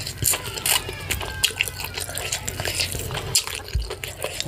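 Close-miked wet eating sounds: chewing and mouth smacks on fufu with slippery ogbono and ewedu soup, a quick, irregular run of sticky clicks and squelches.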